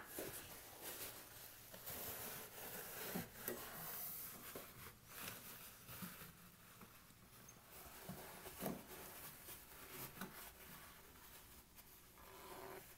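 Paper towel rubbing and rustling as it wipes out the plastic drain-filter housing of a Samsung front-load washer, faint, with a few light taps against the plastic.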